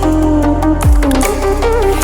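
Background music: an electronic track with a deep bass kick drum about once a second under a melodic lead line.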